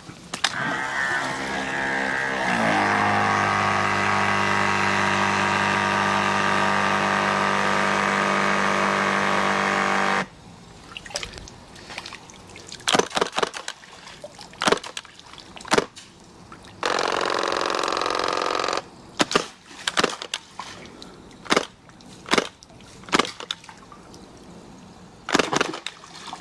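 Spyra electric water gun: its pump starts up, rising in pitch over the first two seconds, and runs steadily until about ten seconds in while the nozzle sits in the pool water, refilling the gun. Then a series of short, sharp water blasts slap onto the pool surface, with a steady hiss lasting about two seconds midway.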